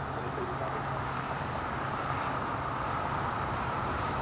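Emergency vehicles idling at close range: a steady low engine hum under an even wash of noise.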